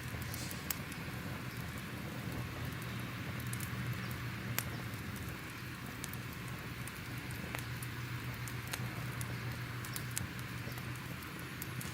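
Crackling fire: irregular sharp crackles and pops over a steady low hum and soft hiss.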